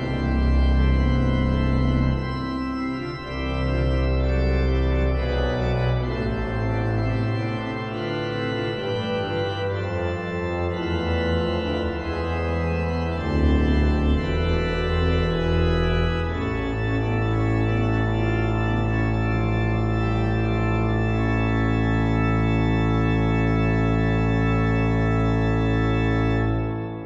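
Church organ playing the closing voluntary (postlude) at the end of the service: sustained chords over a deep pedal bass. About two-thirds through, it settles on one long final chord, which is cut off and dies away at the very end.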